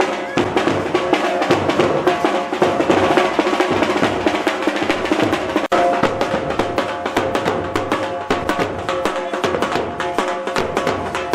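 Music with rapid, dense drumming over a steady held melody; the sound cuts out for an instant about halfway through.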